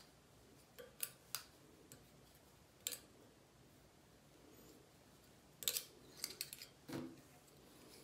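Faint clicks and light ticks from small metal tools, hemostats and hook, being handled while thread is wrapped on a jig. A few single clicks come in the first three seconds, then a quick cluster near the end.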